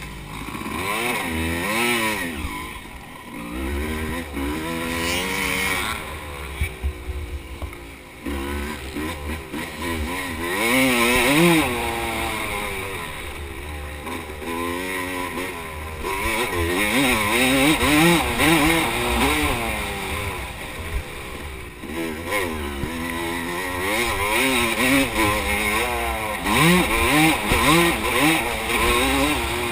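Dirt bike engine, close up, revving hard up and down, its pitch climbing under throttle and dropping back on each shift or corner, over and over.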